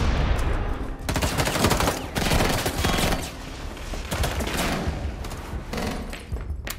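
Dense volleys of rapid gunfire on a film's action soundtrack, many shots overlapping, easing off briefly in the middle and again near the end.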